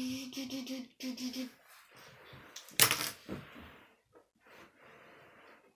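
A child's held, hummed note for the first second and a half, then small plastic Lego pieces clicking and rattling as they are handled, with one sharp click about three seconds in.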